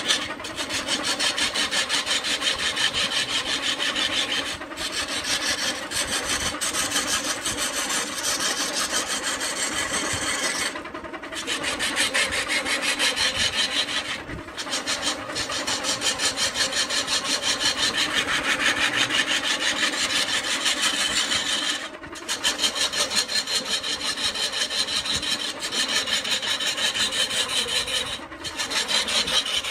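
A turning tool cutting into a coconut palm log spinning on a wood lathe: a steady, loud scraping with a fast flutter. It breaks off briefly about five times as the tool comes off the wood.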